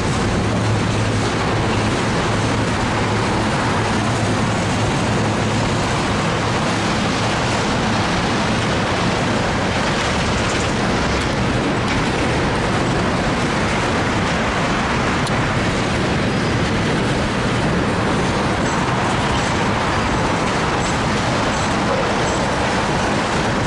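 Tank cars of a loaded oil train rolling past: a steady rumble and rush of steel wheels on rail, with faint high ticks near the end.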